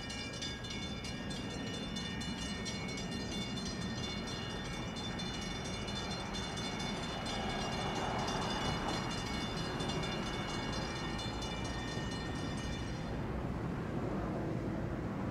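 NJ Transit commuter train running through the station: a steady rumble, loudest about halfway through, with a steady high whine over it that fades out near the end.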